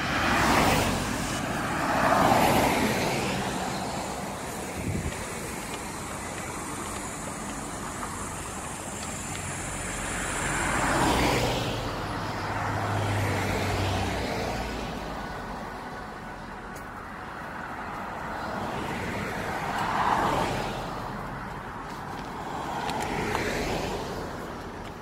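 Road traffic on a busy multi-lane road: cars pass by one after another in rising and falling swells of tyre and engine noise, the loudest in the first few seconds, about eleven seconds in and about twenty seconds in.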